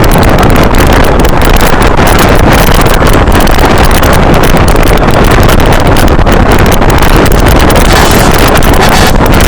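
Loud, steady wind rushing and buffeting over the microphone from riding on the roof of a moving bus.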